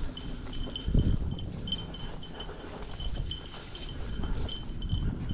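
A small dog bell jingling on and off, over the low thud of footsteps on grass, with one heavier thump about a second in.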